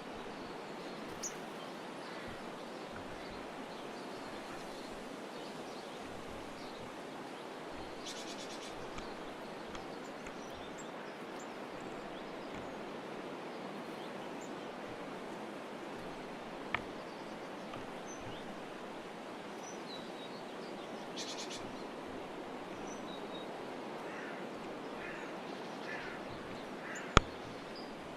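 Steady outdoor background hiss with scattered faint, high chirps of small birds at a garden feeder. A few sharp clicks sound through it, the loudest near the end.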